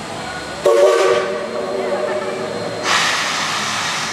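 The Cinderella steam locomotive's whistle gives a short blast of several tones at once, starting about a second in and fading away. From about three seconds in, steam hisses loudly from the locomotive.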